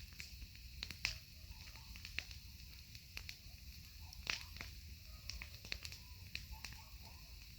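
Wood campfire crackling, with irregular sharp pops and snaps. The loudest come about a second in and just past four seconds in, over a steady low rumble.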